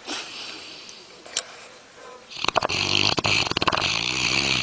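A dog snoring: a softer breath first, then from about halfway a loud, hissy snore with a rapid rattle in it, which cuts off abruptly.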